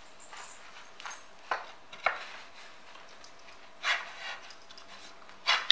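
Wooden bars of an aari embroidery frame being handled and fitted together: a handful of irregular sharp knocks and clacks, the loudest just before the end.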